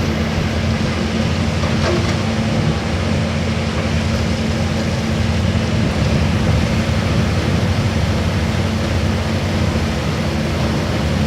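Hydraulic excavator's diesel engine running steadily, a constant low drone.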